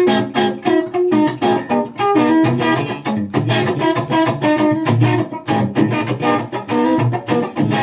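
Electric guitar played through an Egnater Tweaker valve amp and a VHT Special 6 1x12 cabinet: a quick run of picked single notes, several a second, with a fairly clean tone.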